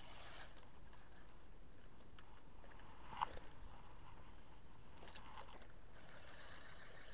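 Handling noise from a spinning rod and reel during a retrieve, with a few faint clicks and one sharp click about three seconds in.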